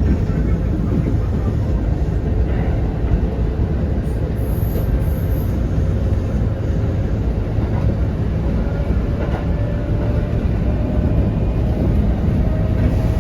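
Kintetsu 1810 series electric train running, a steady low rumble with a faint whine slowly rising in pitch.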